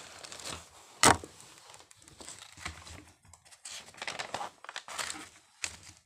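Paper pages of a spiral-bound notebook being handled and turned: rustling and crinkling, with one sharp crack about a second in.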